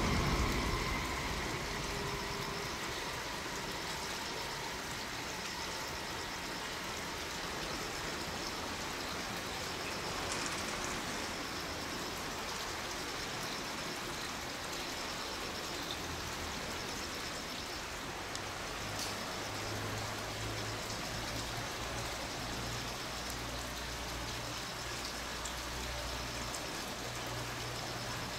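Steady outdoor background noise. A louder low rumble dies away over the first couple of seconds, and a low, steady engine hum sets in about halfway through.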